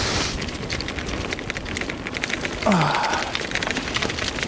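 Bicycle riding fast down a bumpy dirt trail: a continuous clatter and rattle of the bike and tyres over rough ground, with a steady rush of noise.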